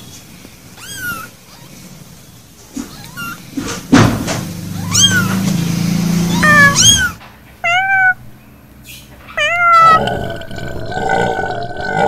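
Newborn kittens mewing: a run of short, high-pitched cries, each rising and then falling, several in quick succession. A louder, lower sound runs under them for about three seconds in the middle.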